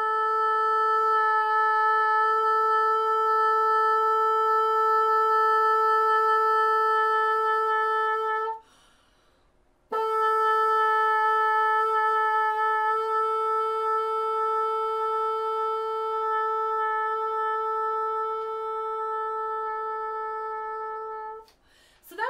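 Bassoon playing long tones: one steady held note, a short breath, then the same note held for about eleven seconds, played with a light lip pressure on the reed. On the second note the tone fades on the diminuendo and nearly cuts out, which the player puts down to not engaging her diaphragm.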